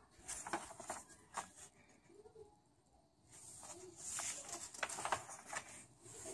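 Faint rustling and scattered light clicks of packaging and small hardware parts being handled, with a longer stretch of rustling past the middle.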